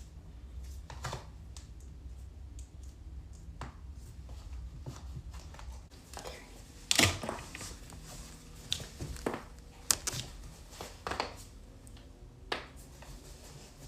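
Human joints cracking: a series of separate sharp pops spread over several seconds, the loudest about halfway through.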